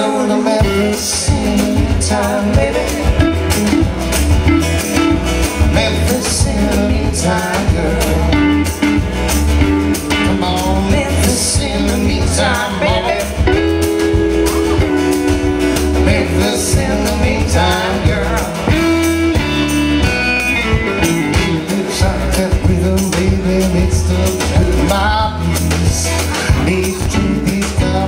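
Live band playing a blues-rock song, with guitar to the fore over a steady low end and beat.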